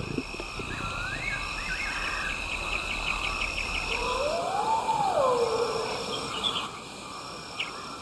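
Night-time bush ambience: crickets and other insects trilling steadily, with a few short warbling chirps early on and one drawn-out call that rises and then falls in pitch about halfway through.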